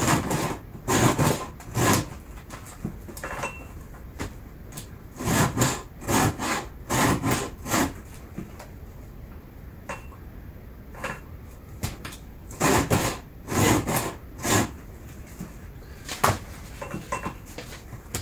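Hand file rasping across the cutting teeth of a chainsaw chain in short strokes. The strokes come in sets of three to five, with pauses of a few seconds between sets.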